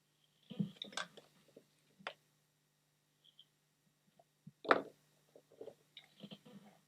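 Small scattered clicks, taps and brief scraping or squishing noises from handling a circuit board and tools on a workbench, with one sharper knock past the middle, over a faint steady low hum.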